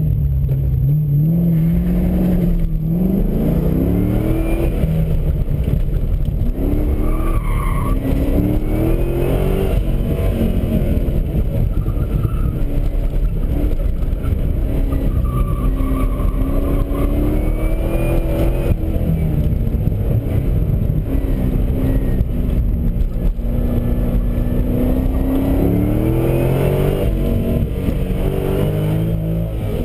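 2007 Corvette Z51's 6.0-litre LS2 V8 heard from inside the cabin, pulling hard and backing off over and over so that its note rises and falls again and again, with occasional tyre squeal as the car is thrown through the cones.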